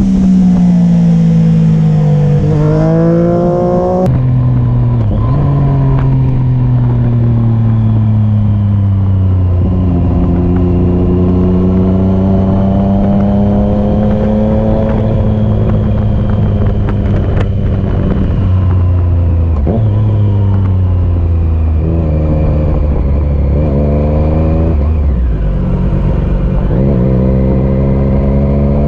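Triumph Street Triple RS's 765 cc inline-three engine running at low revs as the bike rolls slowly, its note rising and falling with the throttle. A few quick revs and drops come in the first few seconds, and a high rushing hiss cuts off about four seconds in.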